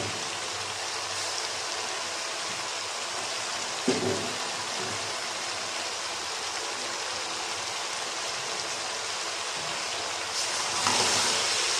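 Steady sizzling hiss from a pot of chopped fenugreek leaves cooking over potatoes and masala, with a single knock about four seconds in. The hiss grows louder and brighter near the end.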